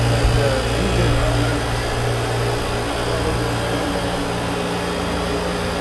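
Steady low hum of onboard machinery running in a yacht's machinery space, with a few steady tones over a faint whir; the lowest part of the hum eases a little about halfway.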